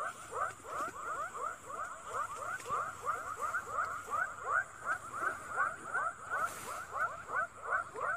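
Frogs calling in a chorus: short, falling notes repeated several times a second at two pitches, over a faint steady high-pitched tone.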